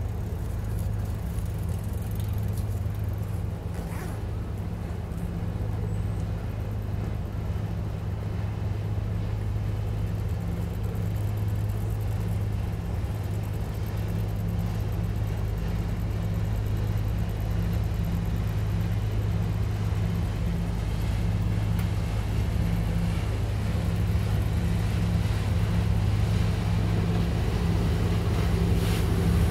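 Steady low engine drone with a deep hum, like nearby traffic, growing gradually louder toward the end as a river excursion boat's engine comes close.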